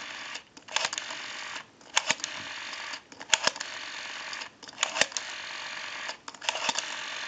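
Rotary dial of a Western Electric Trimline telephone being pulled round and released, one digit after another about every second and a half. Each digit brings a few clicks, with a steady hiss between digits that breaks off briefly as each new digit starts.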